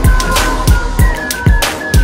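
Electronic background music with a heavy beat: deep kick drums that drop in pitch, crisp hi-hats and a high synth melody stepping down between notes.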